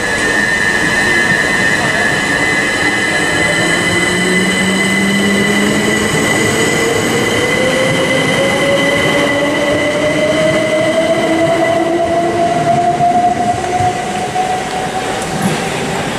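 Southeastern Class 377 Electrostar electric multiple unit accelerating away, its traction motors giving a whine that rises steadily in pitch as it gathers speed, over a steady high-pitched whine.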